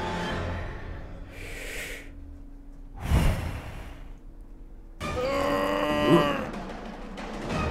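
Film sound effects: a short breathy hiss, a sudden hit about three seconds in, then a voice groaning on a held pitch for about two seconds.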